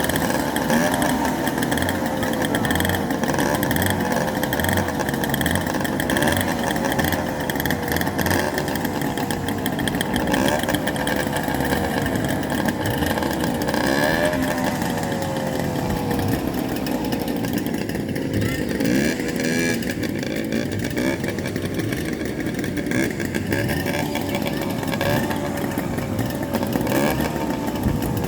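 Go-kart engines running on a track, their pitch repeatedly rising and falling as they speed up and slow down.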